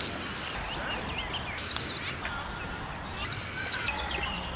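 Outdoor ambience: a steady hiss with scattered short, high bird chirps.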